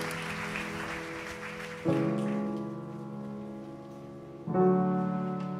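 Background music of slow held chords: a new chord comes in about two seconds in and another near the end, each fading gently.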